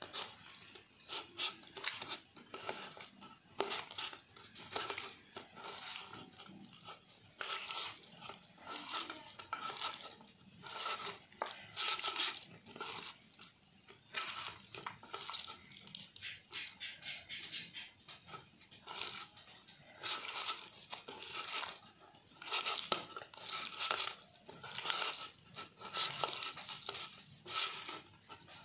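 A bare hand mixing raw fish steaks with wet ground onion paste and spices in a stainless steel bowl: repeated wet squishing and rubbing strokes, about one a second, with the fish and hand scraping against the steel.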